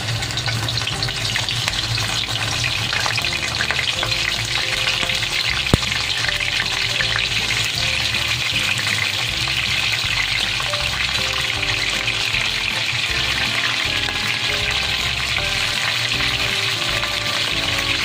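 Whole fish shallow-frying in hot oil in a wok, a steady dense sizzle, with one sharp click about six seconds in.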